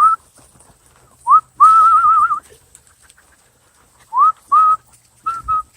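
A man whistling to call his dogs: a series of high whistle notes, some quick rising slides, one longer warbling note about two seconds in, then a few short notes near the end.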